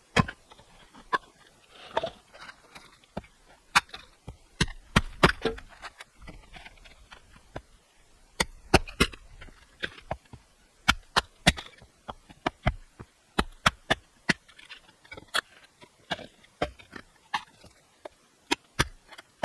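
Firewood being chopped: a series of sharp wooden knocks, about one or two blade strikes a second, irregular, with short pauses and some louder blows.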